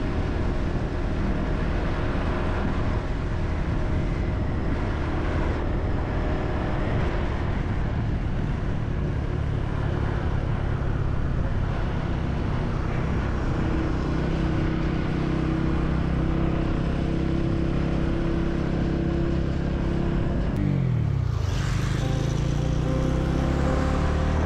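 Motorcycle engine running at a steady riding speed over a constant rushing noise. About three seconds before the end its pitch dips sharply and climbs back.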